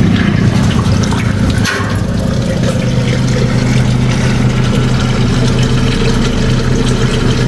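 Water running and draining fast down a restaurant drain, over a steady low machine hum.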